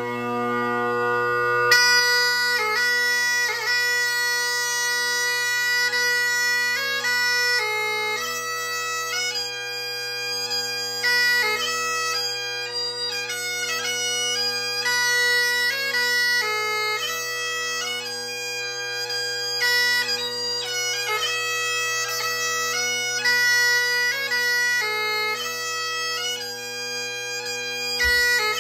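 Great Highland bagpipe playing solo: a steady drone under a held chanter note, and the tune beginning about two seconds in, with quick ornamented note changes over the unbroken drone.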